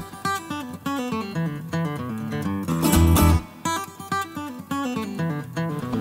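Background music: an acoustic guitar picking a melody of plucked notes, with a few deeper bass notes about halfway through.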